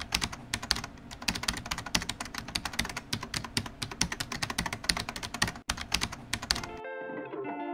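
Computer keyboard typing sound effect: rapid, uneven keystroke clicks that run while a caption is typed out on screen. The clicks stop about a second before the end, when guitar music comes in.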